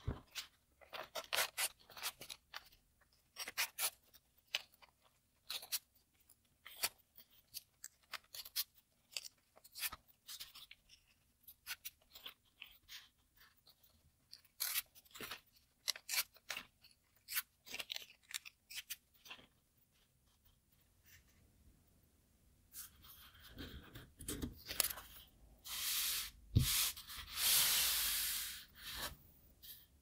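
Origami paper being handled and creased: a run of short, crisp paper rustles and clicks. Near the end come several longer, louder rasping sounds of the sheet being split apart along its creases into small rectangles.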